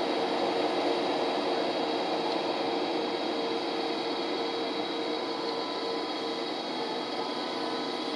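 DB Class 101 electric locomotive running its cooling blowers and traction equipment at the head of an Intercity train as it starts to pull away: a steady rushing hum with several steady whining tones on top.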